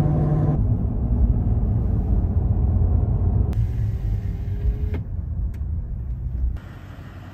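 Low rumble of a Toyota Tundra pickup driving, heard from inside the cab. It changes abruptly at a few edit cuts and drops much quieter near the end.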